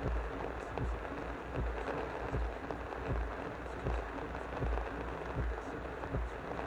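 Heavy rain pelting a stopped car's windshield and roof, heard from inside the car, with irregular low thuds about once a second.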